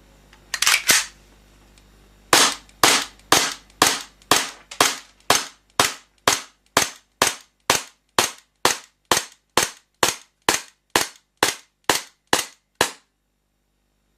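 Airsoft FN FNS-9 pistol firing about two dozen single shots at an even pace of roughly two a second, each a sharp crack. A single brief mechanical double-clack comes about a second in, before the string of shots.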